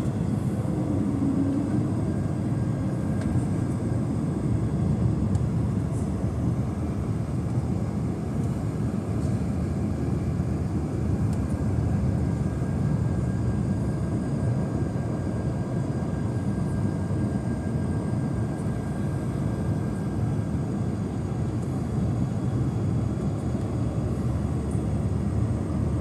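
Steady cabin noise inside an Airbus A220 airliner on approach: the drone of its Pratt & Whitney geared turbofan engines and the rush of airflow, mostly low-pitched, with a faint steady whine above it.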